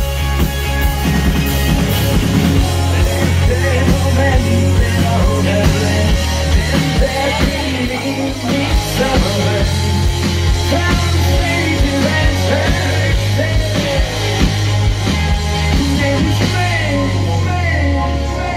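Live rock band playing loudly, with a steady bass line, drums and guitars; the bass and drums drop out right at the end.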